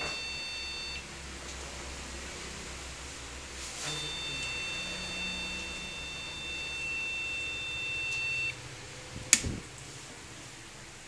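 Computer beeping: a long, steady, high-pitched beep stops about a second in, and another starts about four seconds in and lasts some four and a half seconds. A sharp knock follows near the end.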